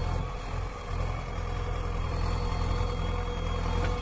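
JCB 3DX backhoe loader's diesel engine running with a steady low rumble, dipping briefly about a second in.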